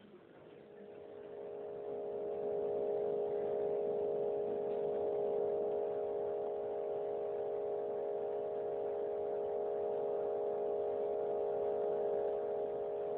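A steady electronic hum made of several tones together, a film sound effect. It swells in over the first two seconds, then holds level without a beat or melody.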